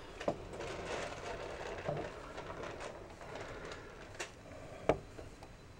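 Faint handling noise from a handheld camera being moved over a model, with a few soft clicks: one just after the start, and two more about four and five seconds in.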